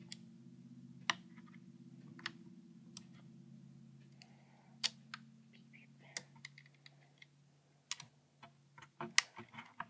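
Magnetic buckyball spheres clicking sharply at irregular intervals as they snap together and are rearranged on a battery. A faint steady hum runs underneath and stops near the end.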